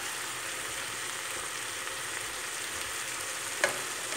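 Cauliflower and green lentils sizzling and simmering in a little water in a frying pan, a steady even hiss. One short sharp tap sounds near the end.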